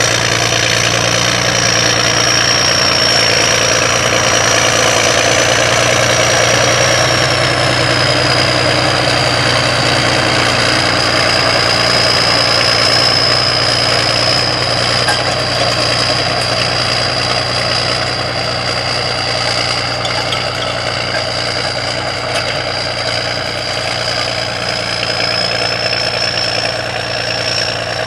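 John Deere turbocharged six-cylinder diesel tractor running steadily under load as it pulls a corn planter, with a high whine over the engine note. It grows a little quieter in the second half as it moves away.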